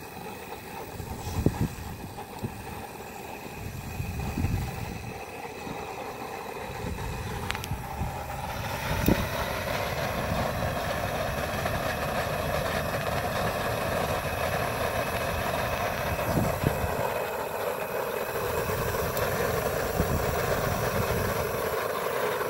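Outdoor propane wok burner running steadily under the wok, a constant roar that grows a little steadier and louder about a third of the way in. Wind buffets the microphone in uneven low rumbles.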